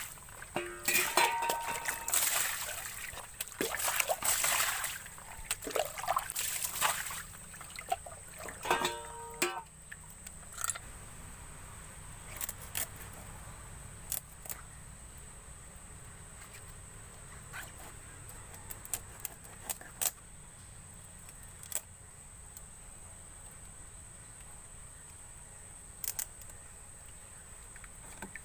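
Water splashing and sloshing in irregular bursts for about the first ten seconds, then a quieter stretch with scattered sharp clicks and taps.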